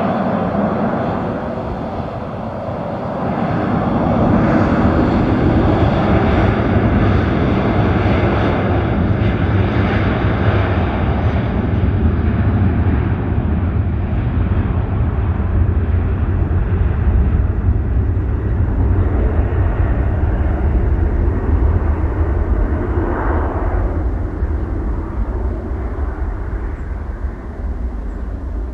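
Jet airliner's engines at takeoff power on the takeoff roll and climb-out. The noise swells a few seconds in and holds strong, then grows duller and eases off toward the end as the aircraft climbs away.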